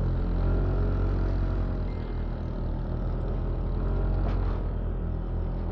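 A vehicle engine running steadily under load while climbing a steep mountain road: a low, continuous drone whose pitch rises and falls slightly.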